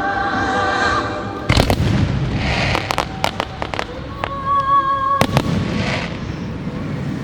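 Fireworks going off during a fireworks show: a string of sharp bangs in clusters, with crackling, over the show's orchestral-style music soundtrack.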